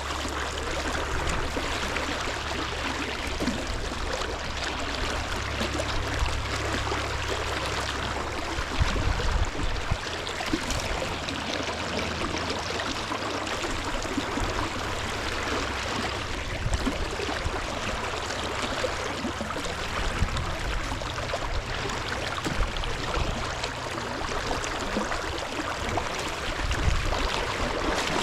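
River water rushing steadily, with a low rumble under it for the first several seconds and again near the end.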